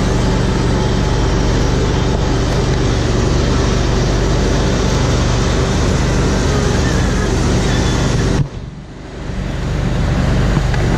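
John Deere 7720 combine harvester running steadily at harvest speed, a loud engine drone under the rushing noise of the machine. About eight seconds in, the sound drops away abruptly, then builds back up about two seconds later.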